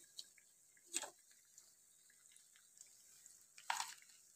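Faint drips of hot cooking oil off a perforated steel skimmer full of fried potato bites, two short drip-like plops about a second in and near the end.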